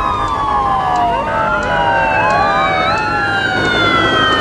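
Several police car sirens wailing at once, their pitches sliding down and up over one another, over a steady low engine rumble.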